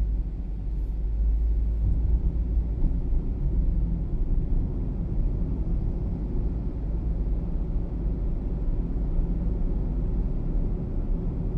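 Car driving along a city road: a steady low rumble of engine and tyre noise heard from inside the car.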